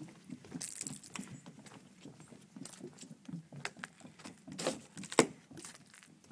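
Footsteps on a wooden boardwalk: an uneven run of knocks on the boards, with one sharp, loud knock about five seconds in.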